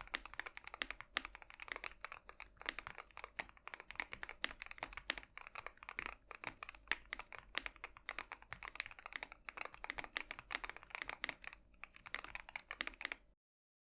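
Tofu60 mechanical keyboard with Gateron Cap Yellow linear switches, O-ring mount and switch pads, being typed on fast and continuously: a dense run of key strokes that stops abruptly near the end.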